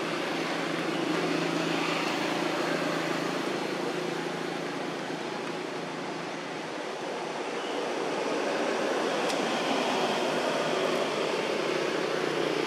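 Steady vehicle engine noise with a low hum under a wide wash of sound, swelling about eight seconds in.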